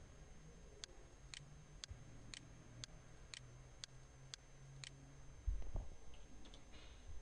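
Faint, even ticking, about two ticks a second, then a low thump and a few soft clicks near the end.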